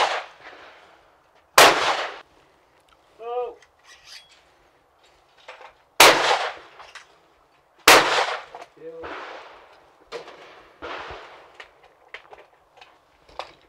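Side-by-side hammer shotgun fired three times at clays: one shot about one and a half seconds in, then two shots about two seconds apart near the middle, each with an echoing tail.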